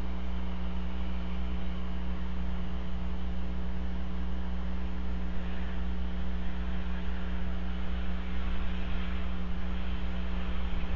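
Steady electrical mains hum with a constant hiss underneath, from the camera's audio feed. The hiss grows slightly stronger about halfway through.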